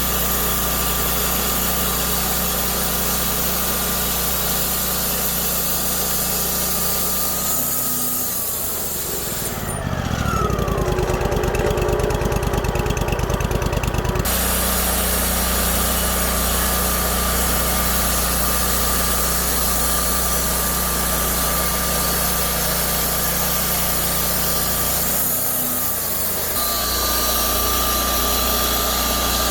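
Wood-Mizer LT40 band sawmill running steadily with a high whine. Twice the pitch slides down and comes back. For about four seconds near the middle, a different rhythmic pulsing engine sound takes over.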